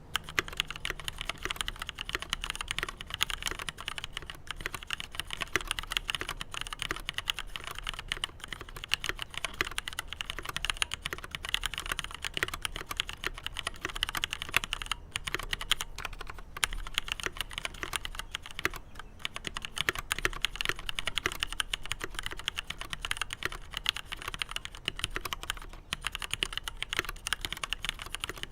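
Continuous fast typing on a Leopold FC750R PD tenkeyless mechanical keyboard with linear Cherry MX Black switches and PBT doubleshot keycaps: a dense, steady stream of keystroke clacks.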